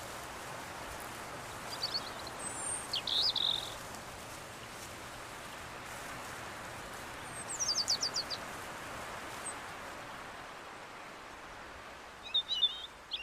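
Woodland ambience: a steady rushing hiss with birds calling over it. There are a couple of short calls two to three seconds in, a quick run of about eight descending notes near eight seconds, and a burst of chirps near the end.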